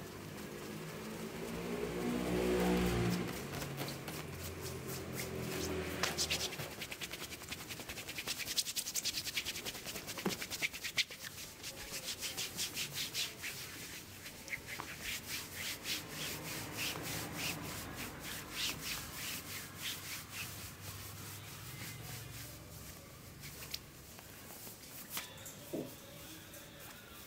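Hands rubbing and kneading a back and shoulders through a cotton shirt during a massage, a soft, steady scuffing of skin on fabric. Through the middle there are runs of quick, light taps, and a short low hum comes about two to three seconds in.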